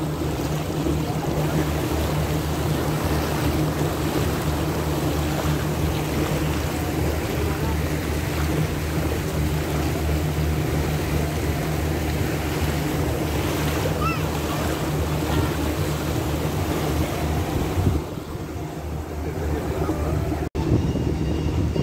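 A boat's engine runs with a steady low hum under a continuous rush of water and wind. The rush thins out near the end, with a split-second drop-out.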